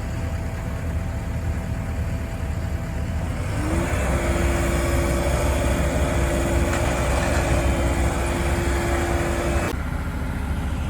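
Diesel engine of heavy digging equipment running, revving up under load about a third of the way in with a steady whine held for about six seconds, then dropping back suddenly to a lower rumble near the end.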